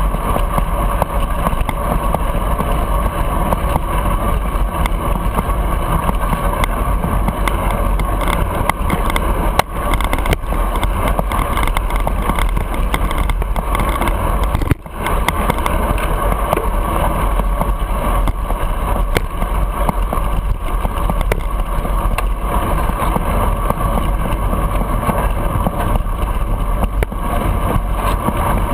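Steady rush of wind buffeting the microphone of a camera on a moving bicycle, with road and passing-traffic rumble underneath. The noise drops out for an instant about halfway through.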